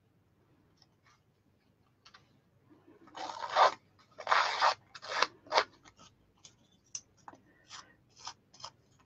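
A hand-held paper distresser tool scraped along the edge of a brown cardstock strip to rough and fray it: a series of rasping strokes, the two longest and loudest about three and four and a half seconds in, then shorter, quicker strokes.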